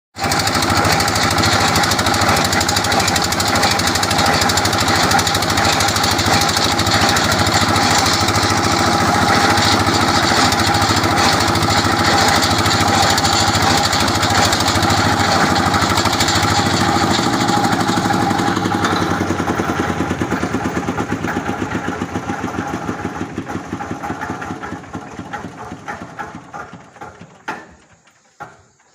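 Engine of a water-well boring machine running steadily, then slowing down, its beats spreading further apart, and dying away near the end.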